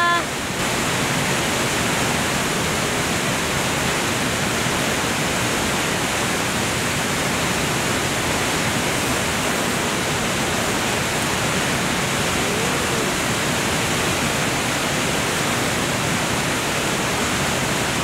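Valley stream flowing, a steady even wash of water noise.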